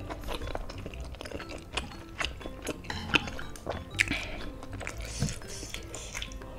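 Metal chopsticks and a spoon clicking and tapping against a bowl of noodle soup, many sharp short clicks as food is scooped and lifted.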